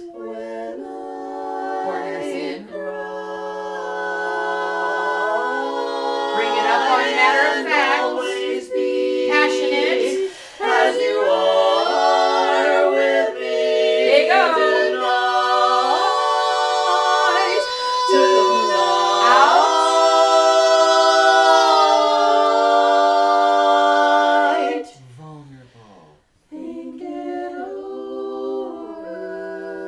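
A women's vocal quartet singing a ballad a cappella, holding sustained chords in four-part harmony. The singing breaks off briefly about 25 seconds in, then resumes more softly.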